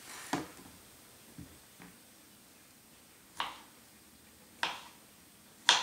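Knife slicing a peeled banana on a plastic cutting board: about half a dozen sharp taps as the blade cuts through and meets the board, slow and unevenly spaced.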